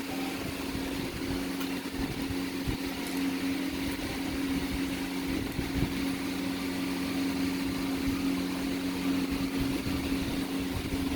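A steady mechanical hum made of two low, unchanging drone tones, with a faint even hiss behind it.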